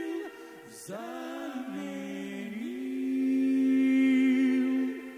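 Unaccompanied vocal group singing in close harmony. The last sung word is followed by a short dip, then a new chord slides in and is held long, swelling louder before it stops near the end.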